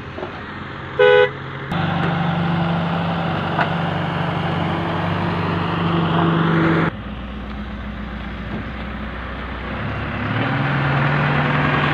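A short, loud horn toot about a second in, then the diesel engine of a wheeled excavator running with a steady drone. The drone changes level abruptly twice, and near the end it rises in pitch as the engine speeds up.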